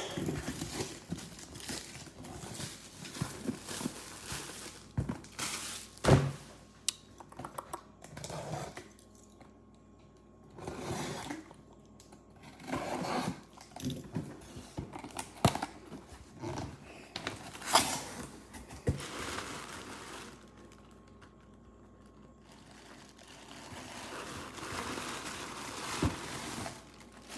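A sealed box being opened by hand: plastic wrap crinkling and tearing, and cardboard rustling and scraping. There are a few sharp knocks as it is handled, the loudest about six seconds in and again near eighteen seconds.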